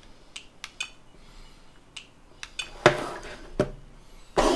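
A few light clicks of buttons being pressed on a hobby lipo charger, then louder clacks and clinks as the battery pack and its connectors are handled on the tabletop. The loudest knock comes about three seconds in, with more near the end.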